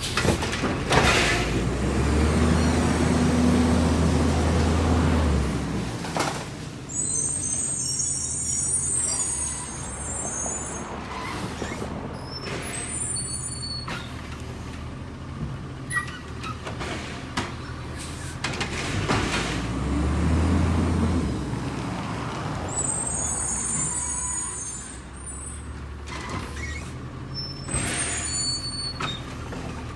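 LNG-fuelled Labrie Automizer side-loading garbage truck working. Its engine revs up twice for a few seconds each time to drive the hydraulics. Several bangs and repeated short hisses of air come over the engine.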